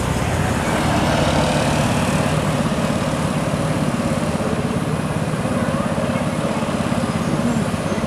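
Tour coach's diesel engine running steadily as the bus approaches close by, a low engine note with a fast, even pulsing, over tyre and road noise.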